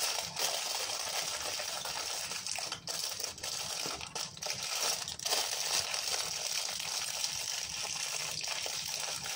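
Aluminium foil being crumpled and folded tightly by hand, a continuous crinkling and crackling.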